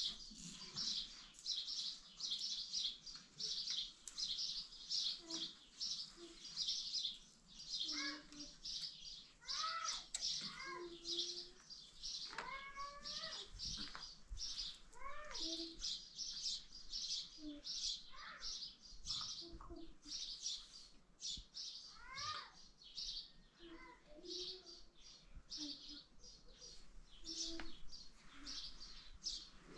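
A flock of small birds chirping busily and continuously. Every few seconds a short, rising, voice-like call sounds lower down.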